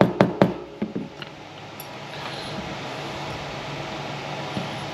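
Small hammer tapping a 1/16-inch pin punch, driving a stubborn pin out of a pistol slide: four quick sharp metal taps in the first second, weakening, then a steady low hum.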